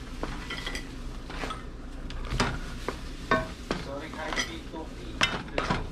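Cooked crabs being laid into a metal pan of simmering coconut milk and pushed about with a wooden spoon: irregular sharp clacks of shell and spoon against the pan, about eight of them, over a faint sizzle.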